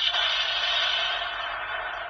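Electronic sound effect played from the speaker of a Chinese-made CSM-style Blay Rouzer toy sword after a spade card is read. It is a dense, echoing effect that fades away steadily.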